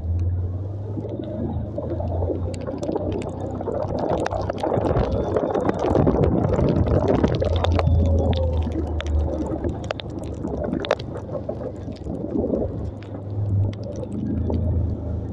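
Motorcycle riding over a muddy, rutted dirt road: the engine's low hum rises and falls under rushing wind on the microphone, with tyres squelching through mud and a few sharp knocks. It is loudest about halfway through.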